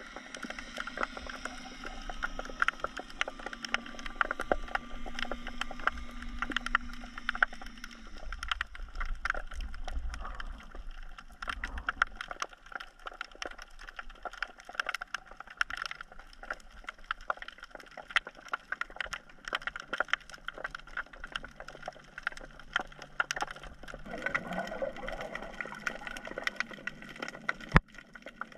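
Underwater sound as heard by a camera submerged while snorkeling: a dense, irregular crackle of sharp clicks over a steady hum of a few tones. A low rumble of water movement rises from about eight to twelve seconds in, and one louder sharp click comes near the end.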